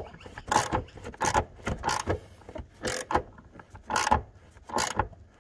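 Ratchet wrench with a 14 mm socket backing out a long bolt, the pawl clicking in short irregular strokes about one or two a second. The bolt turns stiffly, held by blue threadlocker down to its last threads.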